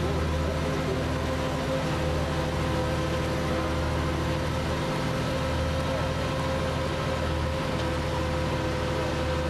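Bristol Lodekka double-decker bus's diesel engine running steadily under way, a deep drone with a steady higher hum over it, heard from inside the passenger saloon.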